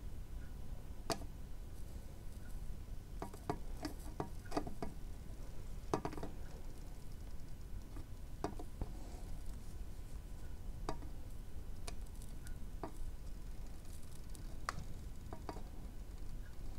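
Soldering iron melting solder onto through-hole header pins, giving faint, irregular ticks and small crackles, over a low steady hum.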